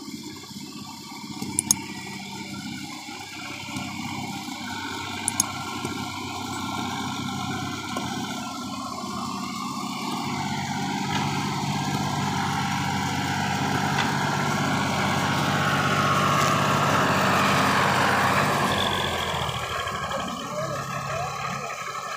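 Ford 4000 tractor engine working under load as it pulls a heavily loaded sugarcane trolley through soft field soil. It grows steadily louder as it comes close, peaks, then eases off near the end, with a few sharp clicks in the first few seconds.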